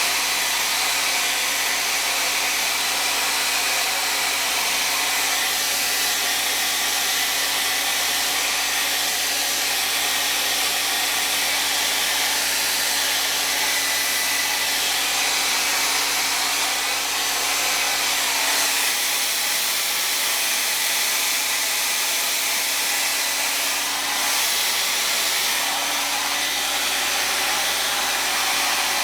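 Revlon hand-held hair dryer running continuously: a steady rush of blown air over a low motor hum, the hum dropping out briefly near the end.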